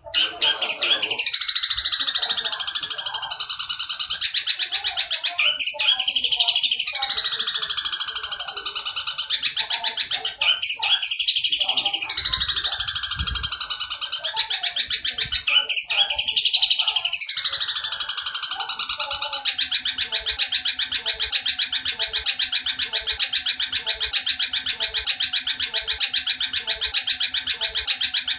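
Oriental dollarbird calls: rapid rattling chatter in phrases that start about every five seconds, each with a falling sweep, running on as one unbroken fast rattle from about two-thirds of the way through.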